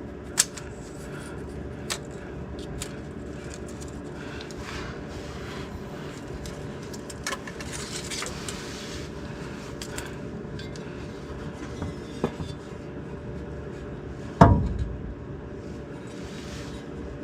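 Scattered metallic clinks and light scrapes from tools and metal parts being handled, with one loud knock a little past the middle, over a steady low hum.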